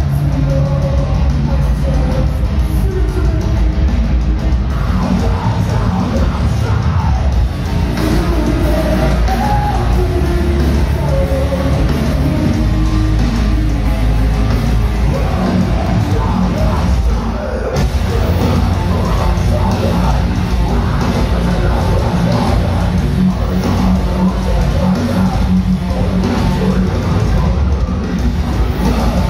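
Metalcore band playing live and loud with no break, guitars, drums and vocals together.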